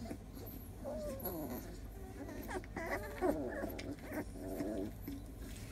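One-month-old doodle puppy whimpering and whining: a run of short, thin cries that slide up and down in pitch.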